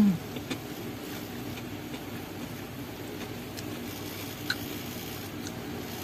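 Someone eating from a spoon: a brief low 'mm' that falls in pitch at the start, then chewing with a few light clicks of a metal spoon, over steady background noise.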